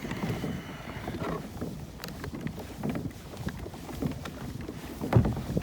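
Pedal-drive kayak under way, its drive and hull churning and swishing through the water in a steady rhythm of strokes, with a louder knock about five seconds in.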